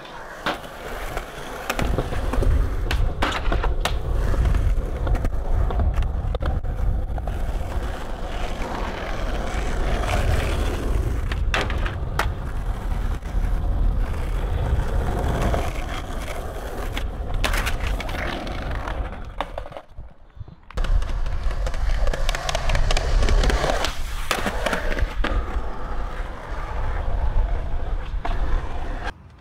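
Skateboard wheels rolling over concrete and asphalt, a continuous rumble broken by sharp clacks of the board. The rumble drops out briefly about two-thirds of the way through, then resumes.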